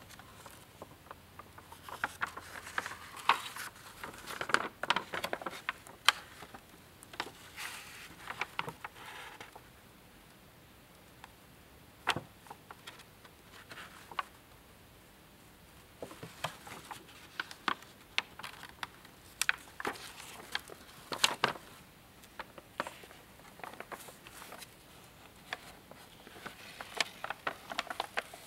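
Stiff, centuries-old paper pages of a 1617 printed book being handled and turned by hand: dry crackles, clicks and rustles in irregular clusters, with a quieter spell about halfway through.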